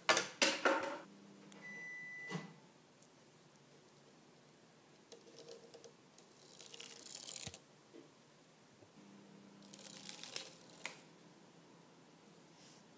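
Handling noise from a small plastic toy crocodile being picked up and moved about on a desk: several short bursts of rustling and scraping, the loudest at the start, with a short faint beep about two seconds in.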